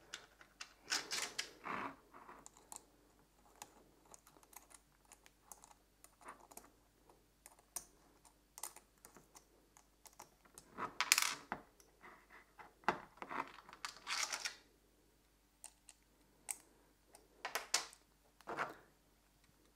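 Small clicks, taps and scrapes of plastic and metal parts being handled and fitted together as a quick release plate is attached to a ULANZI ST-14 smartphone clamp. The handling comes in scattered bursts, loudest about halfway through.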